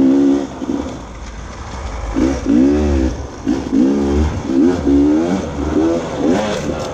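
Beta 300RR two-stroke dirt bike engine, held at high revs for the first half second, then dropping. From about two seconds in it is revved up and back down in short blips, roughly every half second.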